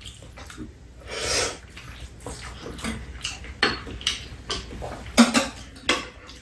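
Noodles being eaten with metal chopsticks: a long wet slurp of jjolmyeon about a second in, then scattered sharp clicks of chopsticks against bowls and small eating noises.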